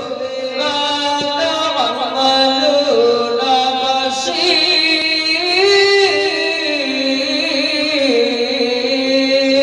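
A man's voice reciting the Quran in melodic qirat style into a microphone, drawn out in long held notes with ornamented turns and glides in pitch.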